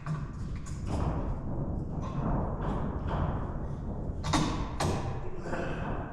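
Wooden framing lumber knocking and thumping as it is handled. Two sharp knocks come half a second apart about four seconds in, over a steady low rumble.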